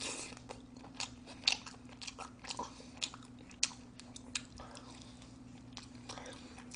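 Close-miked biting and chewing of a smoked roast chicken drumstick: scattered sharp wet mouth clicks and small crunches, a few of them louder. A faint steady low hum runs underneath.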